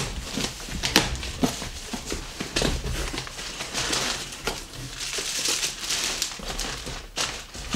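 A cardboard box is torn open and its flaps pulled back by hand, with irregular tearing and scraping clicks. A crinkly plastic packaging bag then rustles as it is lifted out of the box.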